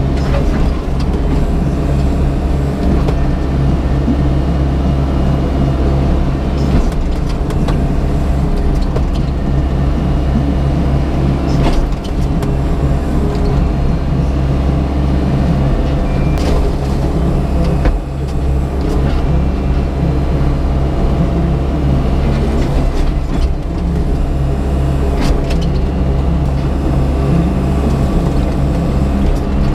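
Crawler excavator's diesel engine running steadily under load while the bucket rips into and drags the gravel and clay of a driveway, with a few sharp clunks and scrapes.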